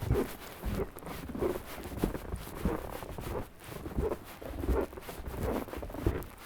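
Footsteps crunching through snow at a steady walking pace, about three steps every two seconds.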